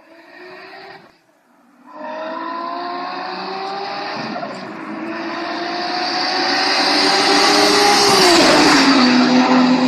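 Toyota Supra engine accelerating hard, its pitch climbing steadily and growing louder, then the car passes close by and the pitch falls quickly to a steady lower tone as it goes away. A short, quieter engine sound and a brief break come before it, about a second in.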